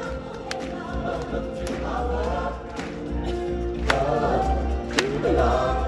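A choir singing over music, with sharp drum hits punctuating the song.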